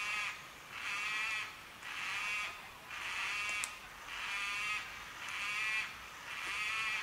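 White-tailed black cockatoo calling, a wavering call repeated steadily about once a second, each call lasting a little under a second.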